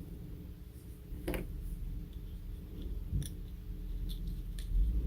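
A few light plastic clicks and soft rubbing as the parts of a car key fob are handled and pried apart by hand, over a steady low hum.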